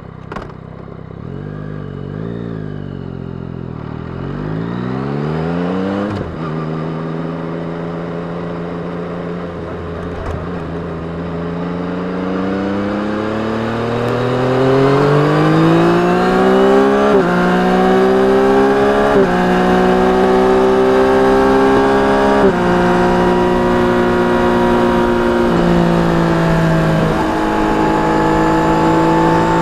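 2021 Yamaha MT-09's inline three-cylinder engine through its stock exhaust, pulling away from low revs and accelerating up through the gears. The engine note climbs, then steps down in pitch at each of several upshifts, and settles into a steady cruise near the end.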